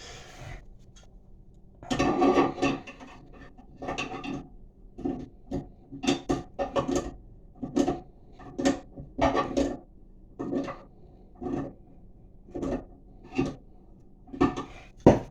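Pliers gripping and turning the mounting nut of a toilet flush lever, a series of short scraping and clicking strokes about one to two a second as the nut is tightened.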